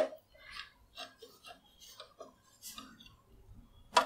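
Screwdriver backing small screws out of a Netgear ReadyNAS RN104's metal chassis: faint, irregular clicks and scraping.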